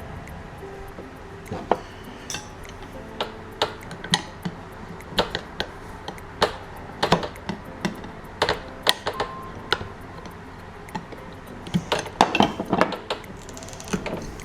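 Hand tools and metal motorcycle parts clinking and knocking at irregular intervals, some strikes ringing briefly, with a quick flurry of clinks near the end, as the stock rubber handlebar riser bushings are worked out of the riser mounts.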